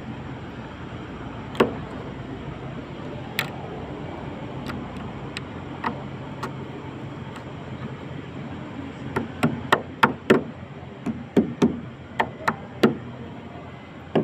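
Sharp taps and knocks from hand work at a concrete roof ledge: a few scattered at first, then a quick run of about a dozen near the end, over a steady low background rumble.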